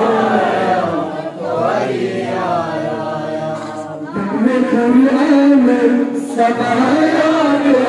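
Unaccompanied male voice singing a manqabat, a devotional poem in praise of Imam Ali, into a microphone, in long melodic phrases with held, wavering notes and short pauses for breath.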